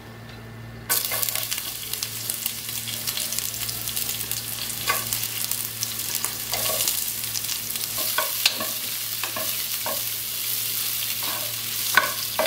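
Sliced onions dropped into hot sunflower oil with whole spices: a sudden sizzle about a second in, then steady frying. A wooden spatula stirs the pot throughout, adding scattered knocks and scrapes.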